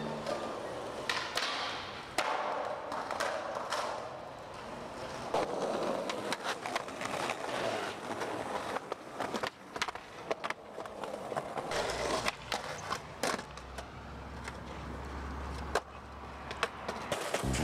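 Skateboard wheels rolling on concrete, broken by sharp clacks of the board popping and landing.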